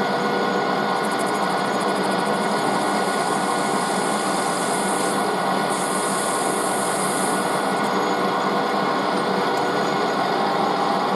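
Metal lathe running steadily with a steady motor hum and whine, while a countersink puts a taper on the end of a small brass part.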